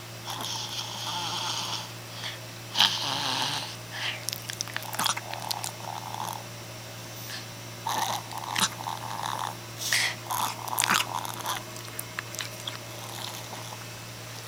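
A dog's noisy, rasping breathing: long snore-like breaths in the first few seconds, then shorter, irregular breaths with sharp clicks. This is the sign of the dog's breathing problem.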